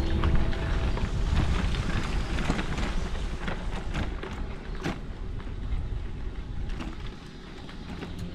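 Simplon Chenoa e-bike riding over a rough gravel and dirt path: tyres crunching, a few sharp knocks from the bike over bumps, and wind rumbling on the microphone. It quietens about seven seconds in as the bike reaches a smooth paved road.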